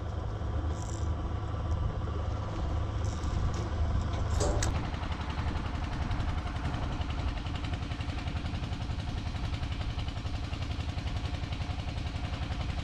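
Fishing boat's engine running with a steady low drone, with a few sharp clicks. About five seconds in, the sound changes abruptly to a busier, faster-pulsing engine note with more hiss over it, as the boat is under way.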